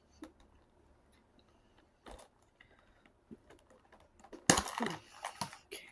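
Clear plastic snack tray being worked open by hand: a few faint clicks, a sharper click about two seconds in, then loud crackling of the plastic packaging near the end.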